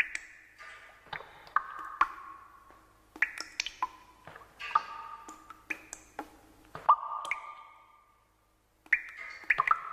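Irregular sharp knocks and plinks, each leaving a short ringing tone, with a pause of about a second near the end.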